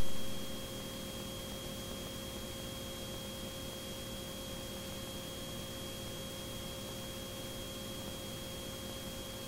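Faint steady electrical hum and hiss with a thin, constant high-pitched whine: the noise floor of an audio line or intercom feed with no one talking. No engine is heard.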